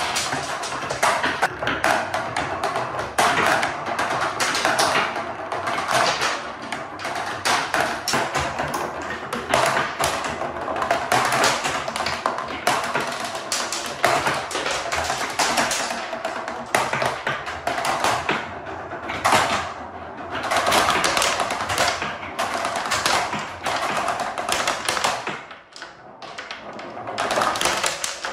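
Many balls of different sizes rolling down a wooden marble-run track, a dense, continuous clatter of clicks and knocks as they hit the wood and each other, thinning out briefly near the end.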